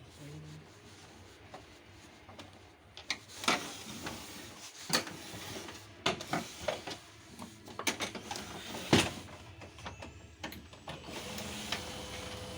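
Canon LBP 2900 laser printer mechanism: a series of irregular sharp clicks and knocks, then a steady motor hum that starts near the end.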